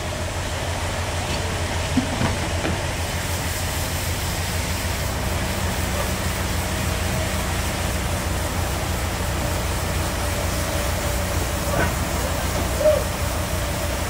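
Forklift engine running steadily with an even, fast low pulse, with a couple of sharp knocks about two seconds in and near the end.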